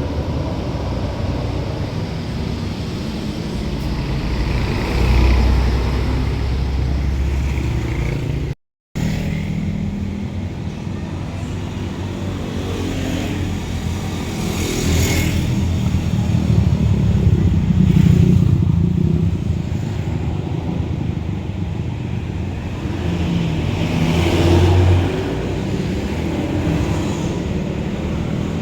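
Large buses driving past one after another, their engines swelling loudly as each passes and fading between, over road traffic noise. A short break in the sound about nine seconds in.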